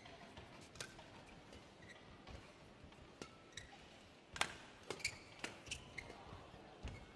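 Badminton rally: sharp clicks of rackets striking the shuttlecock, coming faster and louder in the second half, with short squeaks of shoes on the court mat.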